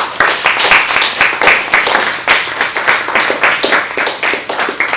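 Audience applauding: a dense, steady patter of many hands clapping, easing off slightly toward the end.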